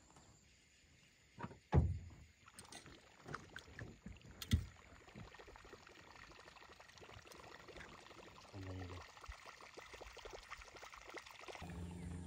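Faint boat sounds on open water: a few sharp knocks in the first five seconds, then a faint water hiss, and a low steady hum that starts near the end.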